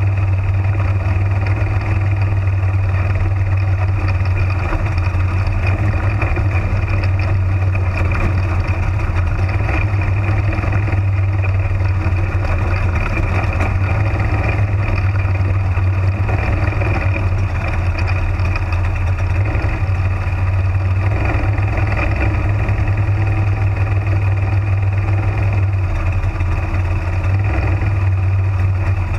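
Spec Modified slingshot race car's engine running hard at racing speed, heard from inside the car: a loud, steady low drone with rushing noise over it.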